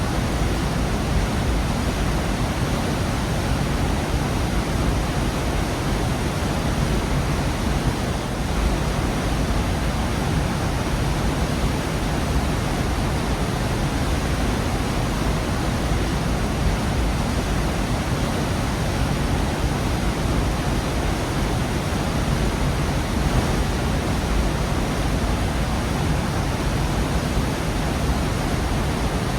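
Gorge waterfall: a steady, full rush of falling water, strongest in the low end, without change.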